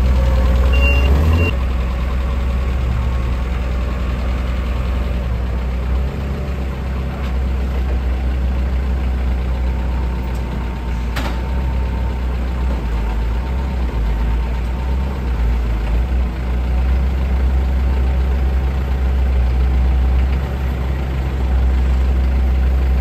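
Forklift engines running steadily at idle, a continuous low drone. A short high beep sounds about a second in, and a single sharp click comes near the middle.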